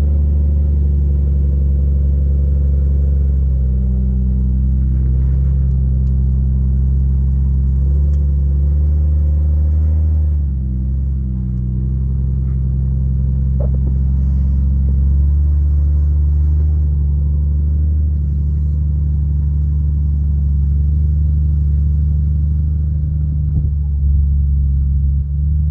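Vehicle engine running steadily at low revs, a deep low rumble with a brief dip about ten seconds in.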